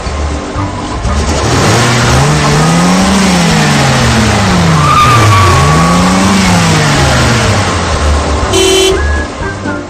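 A car engine revving up and falling back twice over a loud rushing noise, with a short horn toot near the end.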